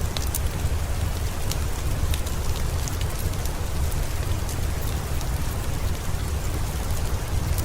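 Steady, dense rain with a deep low rumble underneath and scattered sharp ticks.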